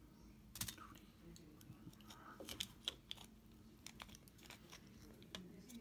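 Faint, scattered small clicks and taps as the metal axle shafts and crown-gear differential of a Tamiya RC truck axle are handled and pulled from the plastic axle housing.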